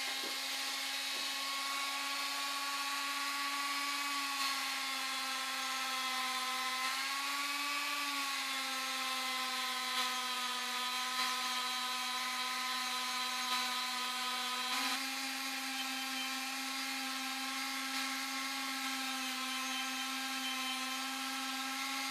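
Dremel rotary tool running a coarse brush disc against a motorcycle engine casing to strip its silver lacquer: a steady high motor whine. Its pitch wavers about a third of the way in and steps up slightly a little past halfway.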